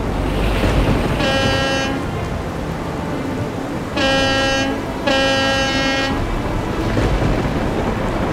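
Boat horn sounding three short toots, each about a second long, over the steady noise of a storm at sea: wind, rain and waves with a low rumble near the start.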